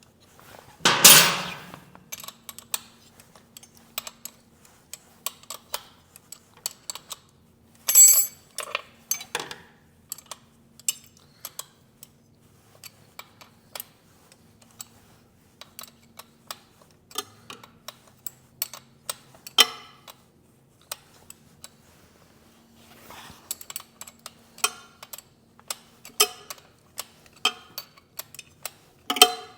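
Hand wrenches clinking and clicking on the bolts of a motorcycle's shift linkage as it is taken off, in scattered metallic taps with a louder clatter about a second in and again near eight seconds. A faint steady hum runs underneath.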